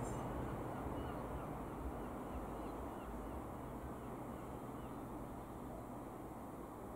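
Steady low drone of a single-engine Cessna U206F Stationair's piston engine and propeller high overhead, slowly fading. Faint high bird chirps in the first few seconds.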